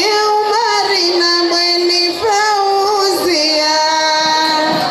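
A woman singing a Comorian tari wedding song solo, in long held notes that step down in pitch.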